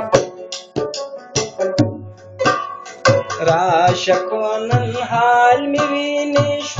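Pashto rabab playing a quick plucked melody with tabla accompaniment. The playing thins briefly about two seconds in, then comes back fuller with the tabla strokes.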